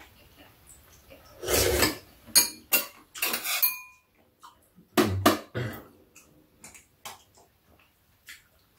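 Metal chopsticks and a spoon clinking against a steel plate and bowls while eating: scattered clicks and taps, one leaving a brief metallic ring about three and a half seconds in.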